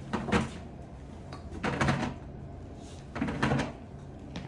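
Golf balls being scooped up with a long-handled shovel off the floor of a golf simulator bay: the shovel scrapes and the balls clatter into it in three short bursts about a second and a half apart.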